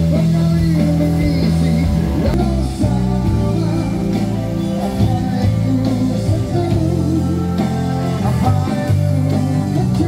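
Live band playing through PA speakers: guitar and keyboard over a steady bass line, with a singer's voice.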